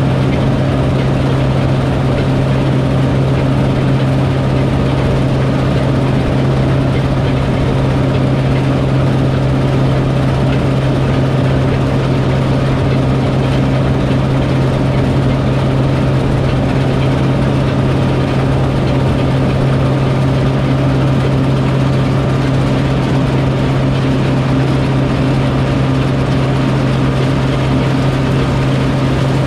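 Large farm machine's engine running at a steady speed, a constant heavy drone with no change in pitch.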